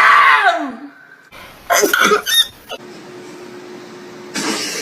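Exaggerated, comic sneezing from a human voice: a loud outburst with wavering pitch at the start, short sharp vocal bursts about two seconds in, and a breathy rush near the end.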